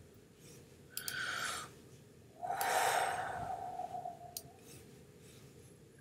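Breaths close to the microphone: a short one about a second in, then a long voiced sigh starting about two and a half seconds in, followed by a single sharp click.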